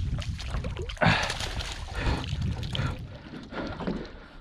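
A flounder splashing at the surface as a landing net scoops it up, with a sharp splash about a second in, then water pouring and dripping off the net's mesh as it is lifted out.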